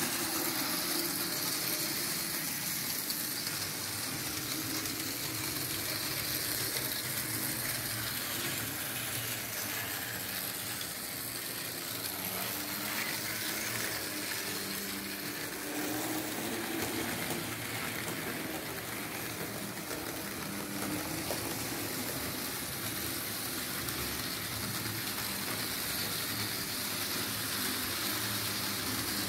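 Märklin H0 model V 200 diesel locomotive and its passenger coaches running on the layout's track: a steady whirr and rumble of motor and wheels with a constant hiss.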